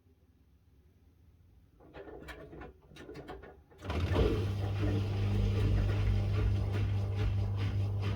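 Miele W1 washing machine: after a quiet moment with a few clicks and splashes, the drain pump switches on about four seconds in and runs with a steady low hum as water gurgles through it.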